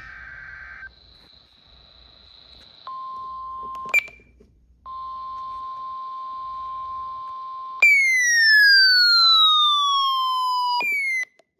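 Emergency alert tones from a NOAA Weather Radio broadcast. A brief buzzy tone comes first, then a steady tone near 1 kHz in two stretches with a click between them. Then a loud electronic tone falls in pitch over about three seconds, and a short second falling tone sounds near the end.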